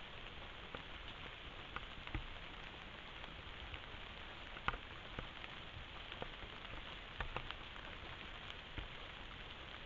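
Steady rain falling on the undergrowth, with scattered sharp ticks, the loudest a little under halfway through.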